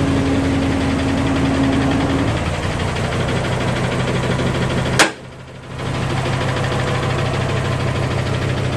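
Isuzu Giga dump truck's diesel engine running steadily, with a sharp click about five seconds in and a brief drop in level after it.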